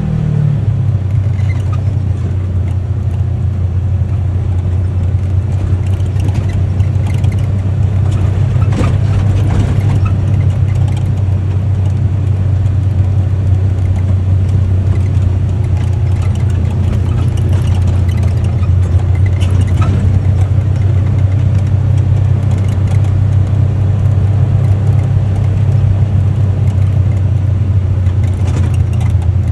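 UTV engine running steadily at an even speed while driving, with a few light knocks or rattles, around 9 and 20 seconds in.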